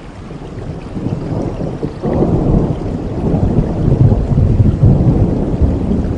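Rolling thunder over steady rain. A deep rumble breaks in about two seconds in and swells, loudest in the second half.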